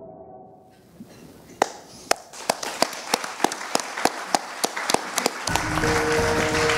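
Hand clapping from the audience, sharp claps at an even pace of about three a second, after the film's music fades out. Near the end, louder, thicker applause and music come in.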